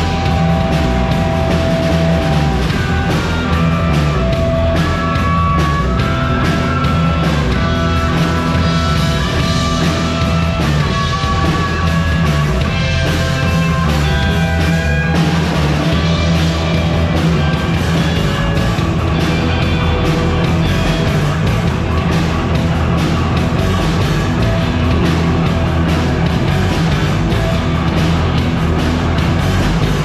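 A live rock band playing loud and full: electric guitar playing a lead line of held notes over bass guitar and a steady drum kit, with no singing. It is recorded close on a GoPro's built-in microphone, so the sound is rough and crowded.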